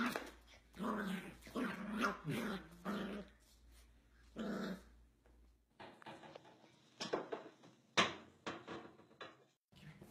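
Corgi puppy growling and yapping in a string of short pitched bursts over the first five seconds, then a few sharp clicks or taps near the end.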